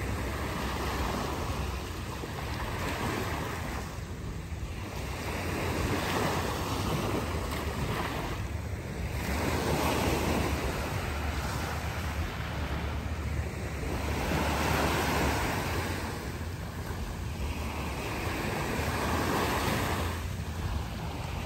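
Small sea waves lapping and washing up on a sandy beach, the wash swelling and fading every four to five seconds, with wind rumbling on the microphone.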